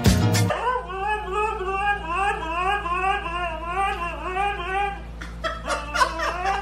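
A husky's long, wavering whine-howl, its pitch sliding up and down over about four seconds, followed by a few shorter vocal sounds near the end.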